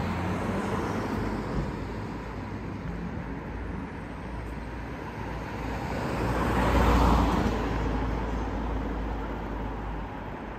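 Road traffic running steadily, with one vehicle passing close: it grows louder to a peak about seven seconds in, then fades away.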